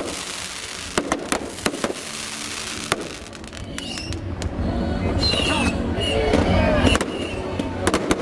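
New Year's Eve fireworks going off: sharp bangs at irregular intervals. A low rumble swells in the middle, with short high whistles over it.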